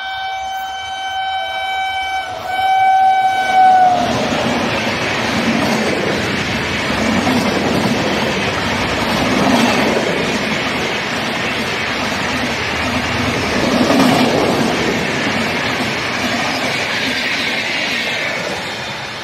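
Indian Railways express train: the locomotive's horn gives two blasts, and the second drops in pitch as the locomotive passes about four seconds in. Then a loud rush of LHB passenger coaches going by at high speed, with the wheel and bogie clatter swelling and fading in a slow repeating rhythm.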